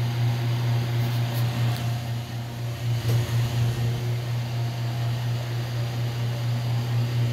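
Stand-up tanning booth running with its lamps lit: a loud, steady low electrical hum from the ballasts over the rush of the booth's large cooling fan.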